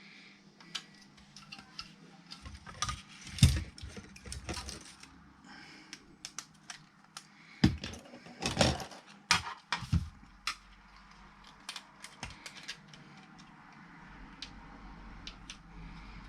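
Clicks, taps and knocks of a car radio unit's casing and parts being handled while a ribbon cable is worked into it. The knocks are scattered and irregular, with louder ones a few seconds in and again around the middle.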